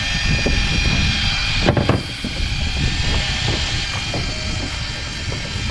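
Electric fishing reel's motor whining steadily as it winds in line, over low wind and boat rumble, with a single knock a little under two seconds in.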